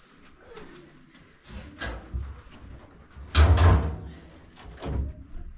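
A few separate knocks and thumps, the heaviest and loudest about three and a half seconds in.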